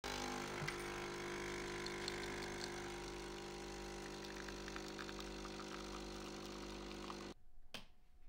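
Automatic coffee machine running as it dispenses coffee into a mug: a steady hum with a faint crackle, stopping abruptly about seven seconds in. A single sharp click follows.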